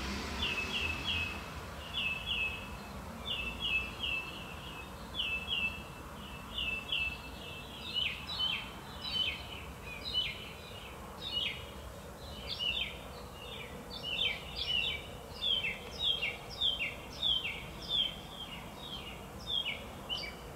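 Small birds chirping in short double chirps, about two a second at first, becoming denser and overlapping from about a third of the way in. A faint steady background hiss lies underneath.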